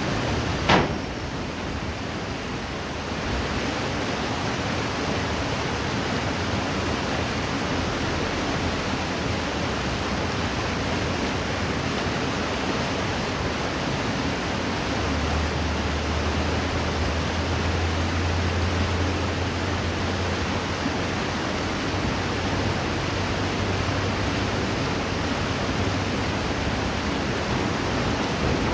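Steady rushing of flowing river water, with one sharp knock a little under a second in and a low drone for about ten seconds from around the middle.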